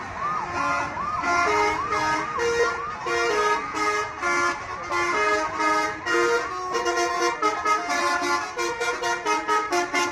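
Bus telolet horn, a set of multi-tone electric air horns, playing a fast melody of short pitched notes, with a wailing glide that rises and falls about twice a second over the first several seconds. From about two-thirds of the way in the notes come quicker and choppier.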